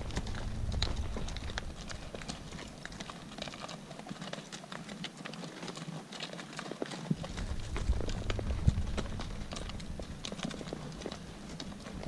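Horses walking downhill on a rocky trail, their hooves clip-clopping irregularly on stones and dry ground. A low rumble on the microphone falls away for a few seconds midway.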